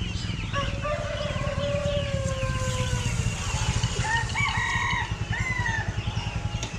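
A rooster crows one long, slightly falling call starting about half a second in, with more fowl calls around four seconds in. Chickens cluck and small birds chirp throughout over a steady low rumble.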